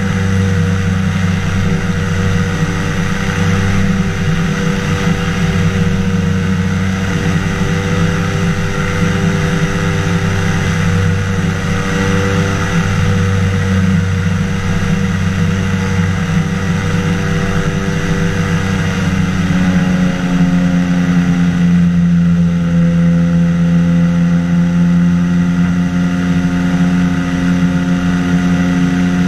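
Engine and pusher propeller of a flexwing microlight flying boat droning steadily in flight, with wind rushing over the microphone. About two-thirds of the way through, the engine note drops a little and settles.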